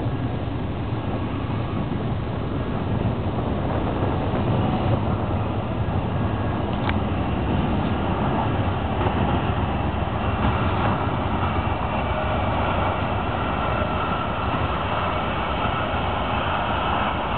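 Lead diesel-electric locomotives of a BNSF freight train approaching and passing, a steady engine and rail rumble that grows louder as they draw level.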